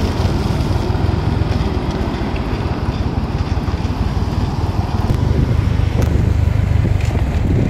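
Motorcycle ridden on the road, its engine running with a steady low rumble of engine and road noise, a little louder in the second half.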